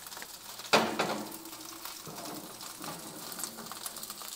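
A sharp metal clank of cookware being handled about a second in, with a low ring that fades over a couple of seconds, over faint sizzling of food cooking on the stove.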